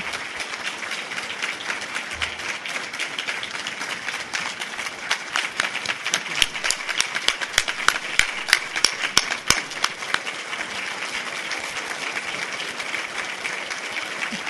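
A large audience applauding. From about six to nine and a half seconds in, a run of louder single claps, about four a second, stands out close to the microphone.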